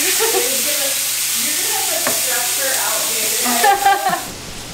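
Ground beef sizzling as it browns in a frying pan over high heat, stirred with a spatula. The frying hiss cuts off shortly before the end.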